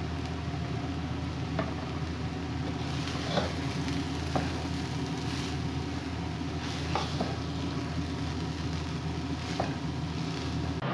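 Egg fried rice frying in a nonstick pan as a spatula stirs and tosses it, with several short taps and scrapes of the spatula against the pan over a steady low hum.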